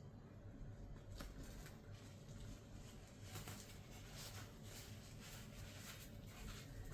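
Near silence: a faint low hum with light, scattered rustling and handling noises.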